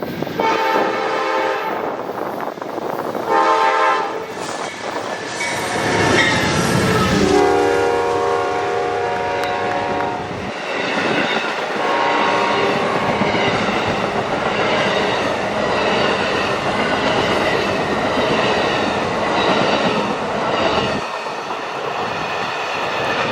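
Amtrak passenger train led by a GE P42 locomotive sounding its horn in several blasts, a long one, a short one, then a longer one, as it approaches. The train then passes close by with steady rolling wheel noise and clatter.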